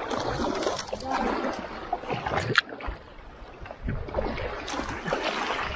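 Kayak paddle strokes splashing in fast floodwater, with the current rushing past the hull. There is a sharp knock about two and a half seconds in.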